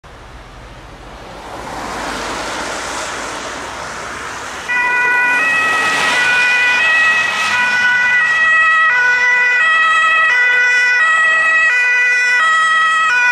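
Traffic noise of cars passing, swelling over the first few seconds. About five seconds in, a German fire engine's two-tone siren (Martinshorn) starts abruptly and alternates high and low notes about every 0.7 seconds.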